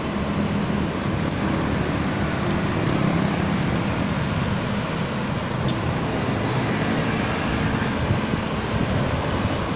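Steady rush of wind and road noise on a handheld phone microphone while riding a bicycle, with a few faint clicks.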